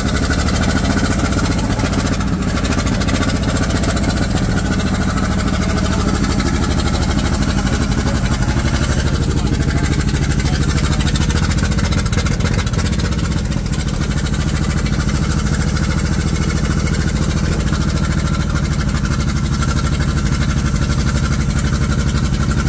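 Race car's flathead engine running steadily at idle with the throttle left alone.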